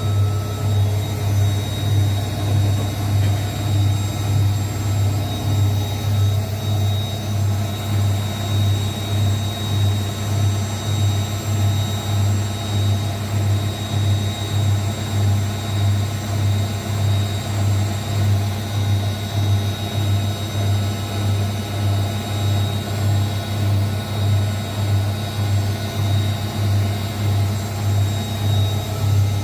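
Zanussi ZWSE680V washing machine spinning steadily in its final spin, on repaired shock absorbers: a loud low hum that pulses regularly in loudness, with a thin steady high-pitched whine above it.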